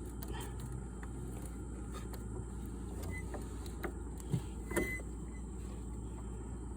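Faint scattered clicks and small knocks of hand tools working the Can-Am DS 250 ATV's chain adjuster, over a steady low background hum.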